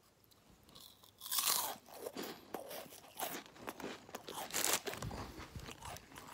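Chocolate-tipped wafer roll bitten and chewed close to the microphone: a quiet second, then one loud crunch, followed by repeated crisp crunching chews.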